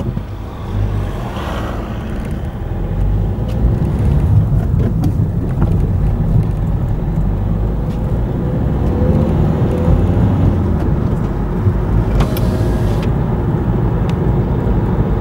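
A car driving along a road: engine and tyre noise that gets louder over the first few seconds as the car picks up speed, then holds steady.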